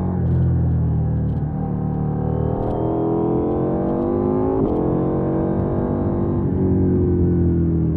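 2020 KTM 790 Duke's parallel-twin engine heard from onboard, running steadily, then rising in pitch under acceleration from about two and a half seconds in and easing off near the end. A few faint clicks sound over it.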